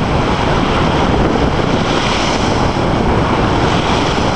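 Loud wind buffeting the microphone over small waves breaking on a lake beach, a steady rushing noise with no distinct events.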